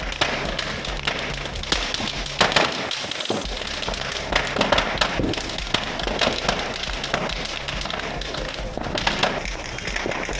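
Firecrackers going off in a warehouse fire: an irregular string of sharp bangs and pops, several a second at times, over background music.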